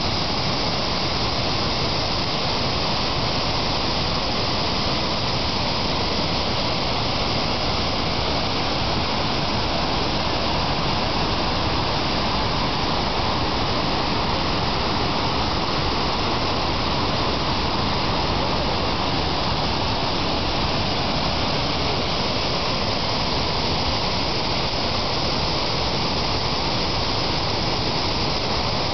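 Large waterfall: water falling in a steady, unbroken rush.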